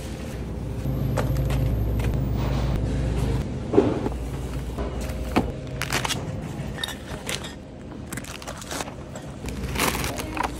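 Metal shopping cart rolling over a tiled floor with a low rumble for the first few seconds. Then come scattered clicks, knocks and rustles as packaged groceries go into the cloth bags hung in the cart, with one sharp knock loudest.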